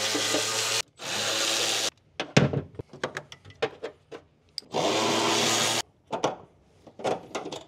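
Milwaukee 3/8" cordless ratchet running in three bursts of about a second each, two back to back at the start and one about five seconds in, as it undoes the bolts holding the airbag module. Clicks and knocks of the socket and loosened hardware come between the bursts.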